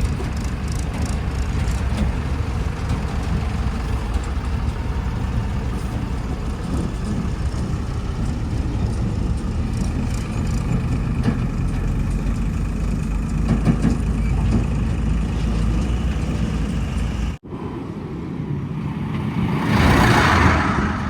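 Heavy diesel engine running steadily. About 17 seconds in, an abrupt cut switches to a second engine sound, which swells into a louder rushing noise near the end.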